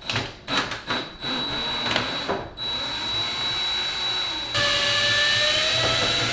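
DeWalt 20V cordless impact driver running, backing out the bolts that hold an over-the-range microwave to the cabinet above it. A steady motor whine that gets louder about four and a half seconds in, its pitch rising slightly.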